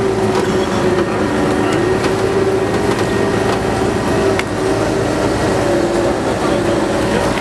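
An engine running steadily at high revs, its pitch wavering a little, while a vehicle stuck in deep mud is pulled on a tow strap.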